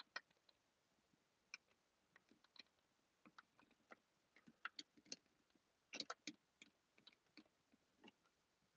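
Faint, irregular small clicks and ticks of HO-scale flex track being pressed by hand into its rail joiners, a cluster of them about six seconds in.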